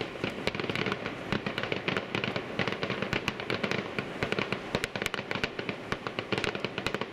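Fireworks display going off in a dense, irregular stream of sharp crackling bangs, several a second, overlapping one another.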